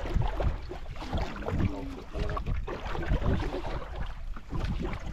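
Wind buffeting the microphone over water slapping and lapping against the hull of a small outrigger boat at sea, in uneven gusts.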